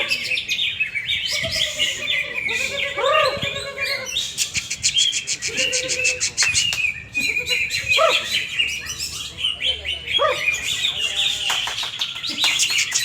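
Many caged greater green leafbirds (cucak hijau) singing at once in a dense, overlapping mix of fast chirps and trills. Lower rising-and-falling whistled calls break through every second or two.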